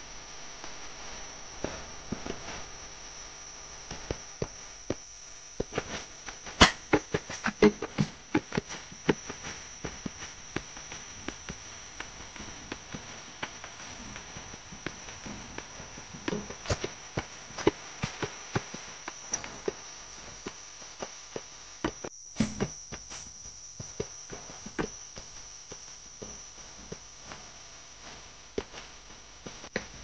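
A steady high insect buzz, under irregular sharp clicks and knocks from a mountain bike rattling over a rough dirt trail, in clusters about a third, half and three quarters of the way through.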